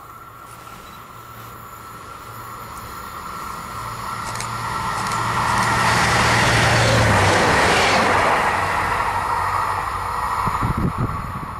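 Red DB Class 642 Desiro diesel multiple unit approaching and running through the station at speed. It grows louder to a peak as it passes, about six to eight seconds in, then eases off. A steady high whine runs underneath, with a few low thumps near the end.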